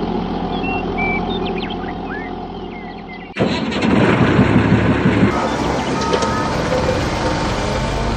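A small motor runs with a steady hum while birds chirp. About three seconds in, an abrupt cut brings in a louder, rougher rumble, with birds still chirping.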